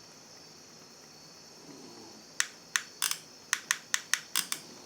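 A quick, uneven run of about nine sharp clicks, beginning a couple of seconds in, from the trigger of a solder-feeding soldering gun being pulled repeatedly to push solder wire out to the tip.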